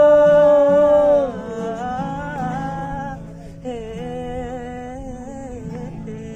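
Informal singing over an acoustic guitar: a man holds a long 'oh' note for the first second or so, drops lower, then sings a few more wordless phrases, with the guitar sounding underneath.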